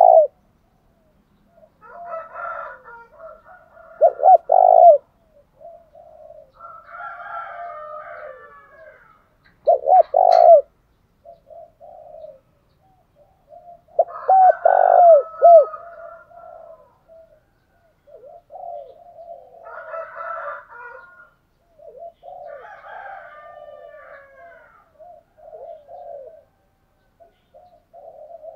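Spotted doves cooing: loud bursts of coos about every five seconds in the first half, then softer, more continuous cooing through the second half.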